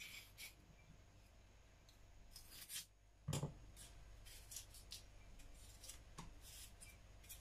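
Kitchen knife cutting chayote in the hand over a cutting board: faint scattered cutting and scraping strokes, with a light knock about three seconds in.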